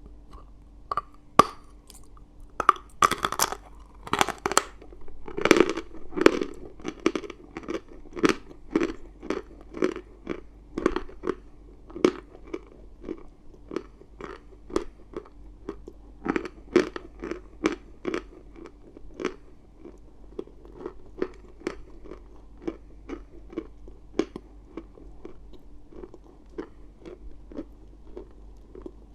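A person biting and chewing pieces of chalk close to the microphone. A flurry of loud, sharp crunches comes in the first few seconds, then a steady run of chewing crunches about twice a second.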